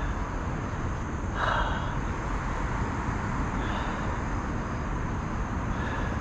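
Steady rush of a fast-flowing river current around a kayak, with a brief louder swish about a second and a half in.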